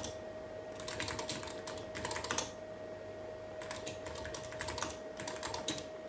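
Typing on the Elonex LT386SX laptop's keyboard: runs of quick key clicks with a pause of about a second near the middle, over a steady tone.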